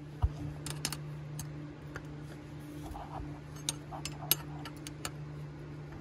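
Scattered light metallic clicks and clinks of a combination wrench being fitted onto the nut at the transmission shift shaft, over a steady low hum.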